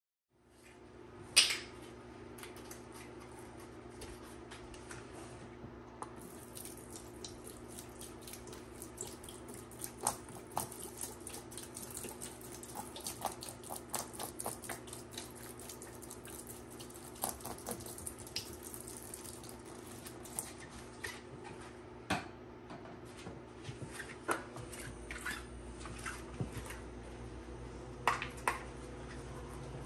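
Liquid cleaner being poured onto two dry grout sponges in a plastic tub, with many small drips, ticks and pops as it splashes and pools, over a faint steady low hum.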